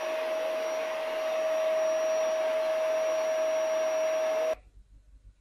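An electric appliance motor running steadily: an even rushing noise with a steady mid-pitched hum in it, which stops abruptly about four and a half seconds in.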